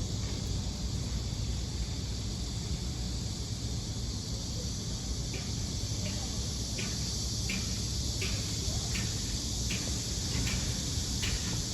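Steady high-pitched insect chorus over a low rumble. From about halfway through, a short chirp repeats roughly every 0.7 seconds.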